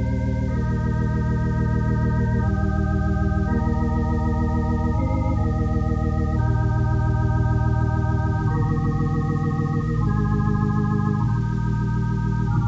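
Organ playing slow, sustained chords with a slight vibrato over held bass notes, the chord changing every second or two: quiet instrumental music under an altar-call invitation.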